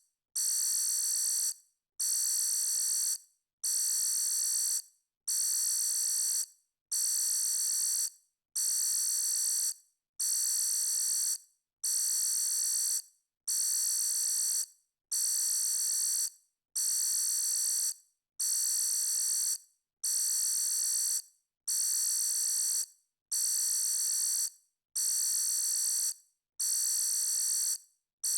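Electronic alarm sounding in a steady repeating pattern: a high, buzzy tone about a second long, repeated roughly every second and a half with short silent gaps between.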